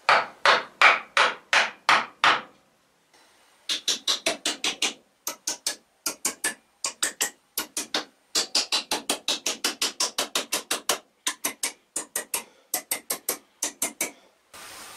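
A hammer striking a wooden hammer handle to seat a hammer head on it: about seven heavy blows, then, after a short break, long runs of quick, sharper taps driving a wooden wedge into the handle's end to lock the head on.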